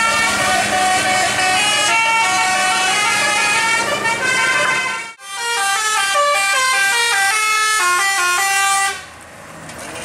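A tour bus's "telolet basuri" multi-tone horn playing a melody, its notes stepping up and down. It breaks off abruptly about five seconds in, starts again, and stops near the end, leaving the bus running.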